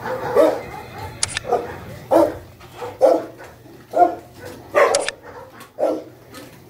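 Dogs barking repeatedly, short single barks roughly once a second, about eight in all.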